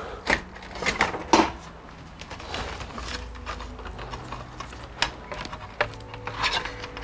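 Irregular clicks, knocks and rustling from a VGA cable and its plugs being handled and untangled, over a faint steady hum.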